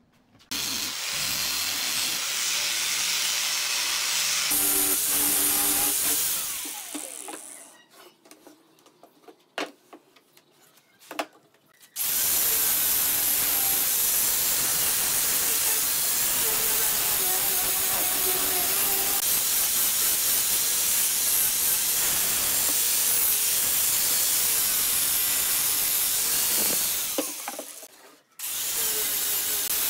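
Electric angle grinder with a flap sanding disc running against a wooden chair frame, sanding the edges. It runs steadily with a whine, spins down around six seconds in, and is followed by a few knocks. It starts again at about twelve seconds, stops briefly near the end and restarts.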